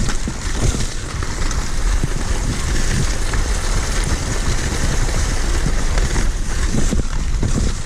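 Kicksled runners hissing steadily over a snow trail as two sled dogs pull it along, with wind buffeting the microphone.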